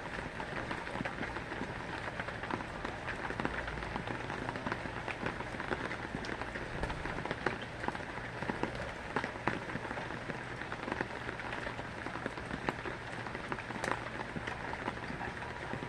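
Steady rain falling on a surface, a dense even patter with many separate drops ticking through it.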